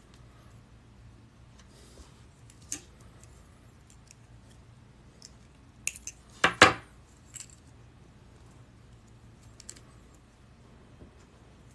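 Paperclip wire rings and chainmail being handled: scattered light metallic clicks, with a short jangle of metal rings about six and a half seconds in, the loudest moment.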